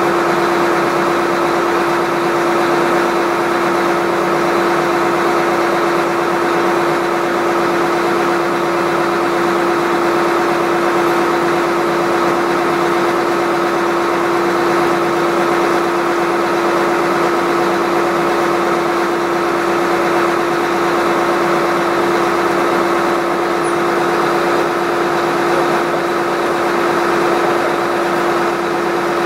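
Engine of a drilling rig running steadily at a constant speed, giving an even, unchanging hum.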